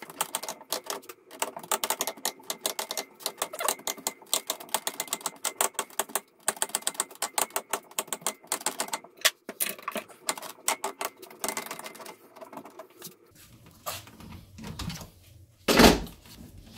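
Rapid run of ratcheting clicks as a one-handed bar clamp is pumped tight against an electric motor housing, followed by a few low knocks near the end, the loudest just before the end.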